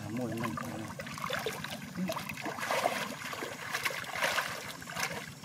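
Shallow muddy water splashing and sloshing in irregular bursts as hands grope through it for fish.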